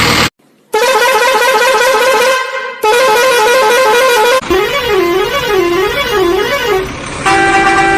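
Electronic horn and siren tones: a fast-warbling horn twice, then a slower rising-and-falling siren wail, then a short stepped horn tune near the end, after a brief silent gap at the start.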